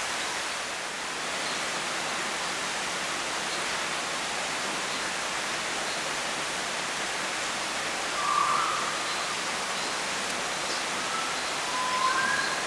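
Steady, even rushing noise, like falling water. A few short whistled notes come in about eight seconds in and again near the end.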